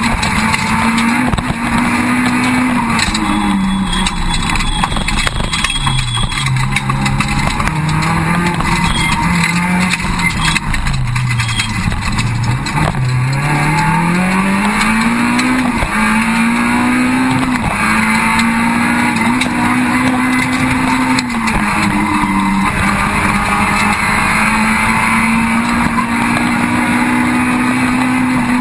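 Peugeot 306 Group A rally car's engine at racing pace, heard from inside the cabin, its revs held high for long stretches with brief dips at gear changes. About a third of the way in the revs fall away for several seconds, then climb back up.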